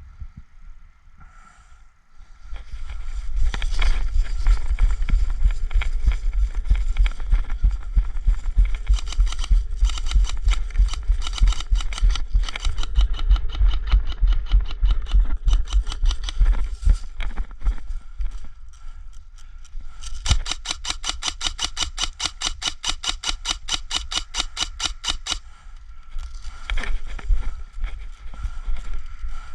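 Loud, irregular rumbling and rubbing of movement against the microphone. Then, for about five seconds, an airsoft rifle fires full-auto as a fast, even string of shots, about nine a second, with a few more shots near the end.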